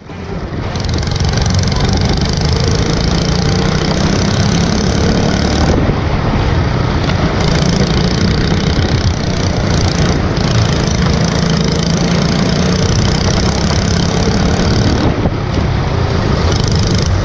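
Racing kart engine running hard at lap speed, recorded onboard with rushing wind noise. The upper part of the sound drops away briefly three times.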